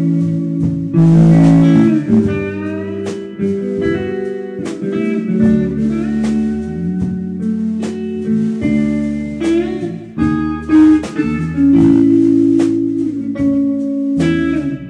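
Electric guitar fitted with a B-string bender, playing a slow melody with pedal-steel-style bends, over electric bass and a drum kit.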